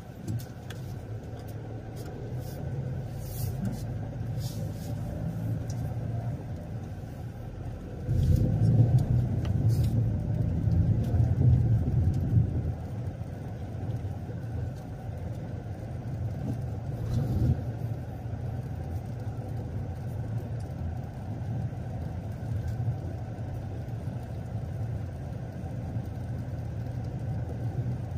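A car driving: a steady low engine and road rumble, swelling louder for a few seconds about eight seconds in, with a smaller swell near the end of the second third.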